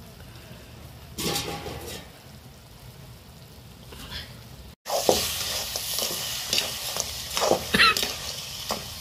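Crabs sizzling and bubbling in a metal wok over a wood fire. About halfway in, a metal ladle starts scraping and stirring them against the pan in a run of short strokes, with the loudest scrapes near the end.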